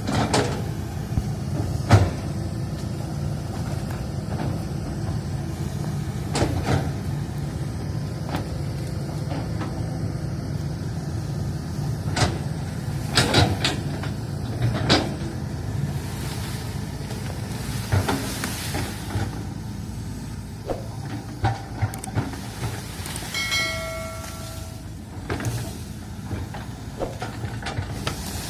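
Diesel engine of a Hitachi hydraulic excavator running steadily at work, with scattered sharp knocks and clanks from the machine as it digs.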